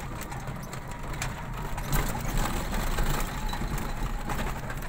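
Vehicle engine running at low speed, with scattered rattles and knocks as the vehicle jolts over a rutted, mud-caked dirt road.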